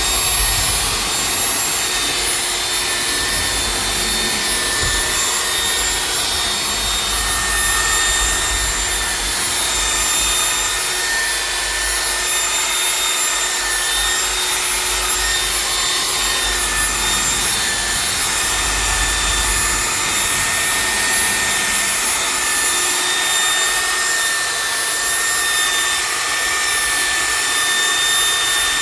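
Electric machine polisher running steadily with a high motor whine, buffing compound into car paintwork to cut out sanding scratches and bring back the shine.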